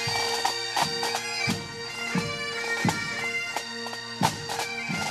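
Highland pipes and drums band playing: bagpipes sounding a melody over their steady drone, with drum strokes beating through it.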